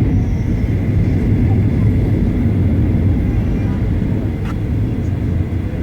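Steady rumble of a Boeing 737-900ER heard inside the economy cabin: its CFM56-7B jet engines and the airflow, with a faint steady whine on top.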